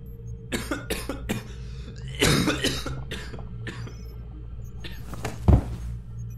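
A person coughing and choking in repeated fits on poisoned air, over a low steady hum. A heavy thump about five and a half seconds in is the loudest sound.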